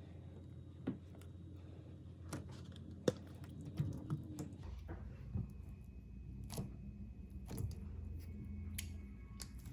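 Slime being handled close to the microphone: scattered small clicks and sticky pops over a low steady hum.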